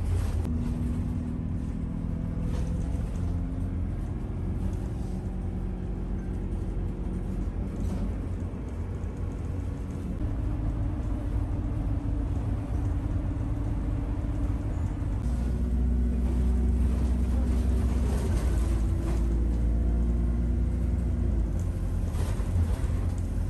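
Bus engine running and road rumble heard from inside the cabin while it drives, the engine's hum shifting pitch now and then as it changes speed.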